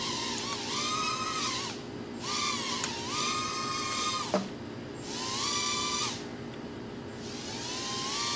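Estes ProtoX nano quadcopter's tiny motors and propellers whining in four short spurts as the throttle is pushed up and cut, each spurt rising in pitch as it starts and falling as it stops. A sharp tap about four seconds in, as the quad drops back onto a hard surface.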